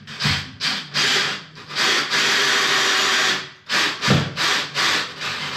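Cordless drill-driver running in short bursts, with one longer steady run of about a second and a half in the middle, driving in a towel rail's bracket screws.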